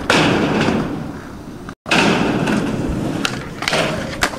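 Skateboard wheels rolling hard over concrete with sharp wooden clacks as the tail pops and the board strikes, the sound dropping out for an instant partway through; then more rolling and a few knocks as the board hits the metal rail.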